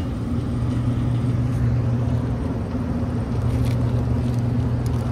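Steady low hum of rooftop HVAC equipment running, with a few faint light clicks in the second half.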